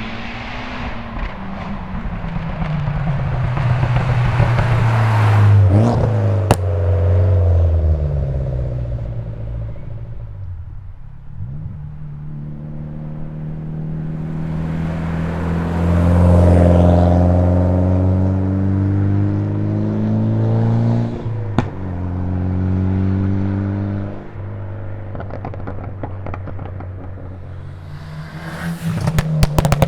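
Tuned Mitsubishi Lancer Evolution X RS's turbocharged 2.0-litre 4B11 four-cylinder driven hard, its revs climbing and dropping repeatedly as it is worked through the gears, with a sharp crack twice, at about a quarter and three quarters of the way through. Near the end a fast drumbeat comes in.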